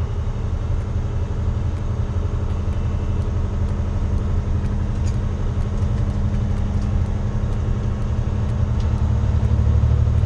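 Diesel engine of a Volvo VNX 300 heavy-haul day cab, heard from inside the cab as a steady low drone while the truck drives under a heavy load. The drone grows a little louder near the end.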